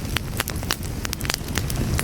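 Fire burning with a steady low rumble and frequent sharp, irregular crackles and pops.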